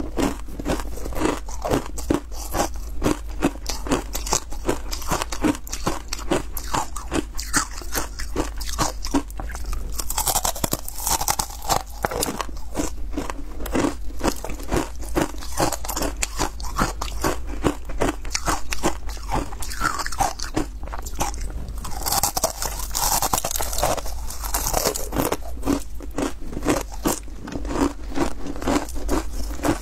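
Hard matcha ice being bitten and chewed close to the microphone: rapid, continuous crunching and cracking, several crunches a second.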